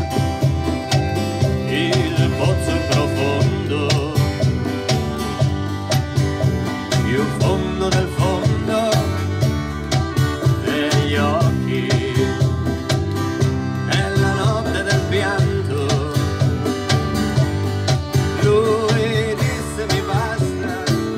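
Live folk band playing: acoustic guitar, accordion, electric bass and congas together in a steady, rhythmic tune.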